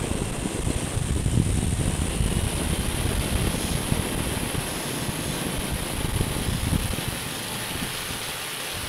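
Powered parachute trike flying low on approach: its engine and propeller run behind the seats under wind buffeting the microphone. The sound eases off a little near the end.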